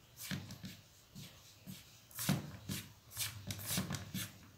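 Fingers rubbing and squeezing damp wheat flour in a steel bowl as water is worked in for dough: a string of soft, irregular rustles and pats, about a dozen in all.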